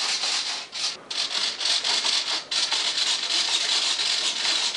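Loud, hissy rubbing and scraping noise with short breaks about a second and two and a half seconds in, as of something brushing over the camera's microphone while it is handled and moved.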